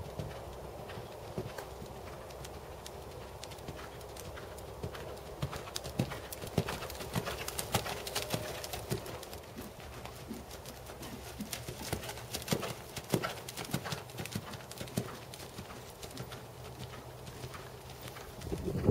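Hoofbeats of a black Percheron/Thoroughbred horse moving around a dirt riding arena under a rider, a continuous run of hoof strikes, louder in the middle as the horse passes nearer.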